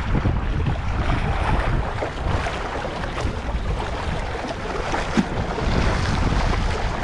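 Wind buffeting the microphone with a steady low rumble, over small sea waves washing and splashing against the rocks of a seawall.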